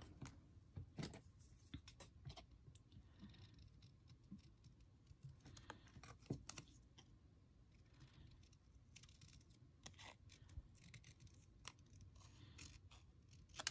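Faint scissors cutting paper, with scattered small clicks and taps from handling.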